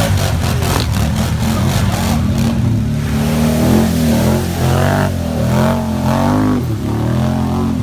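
ATV engine revving hard in repeated bursts, its pitch sweeping up and down as the quad ploughs through deep mud under load.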